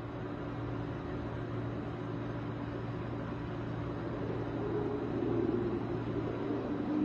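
A low, steady droning hum with a couple of held tones under a rumbling haze, swelling somewhat louder about five seconds in.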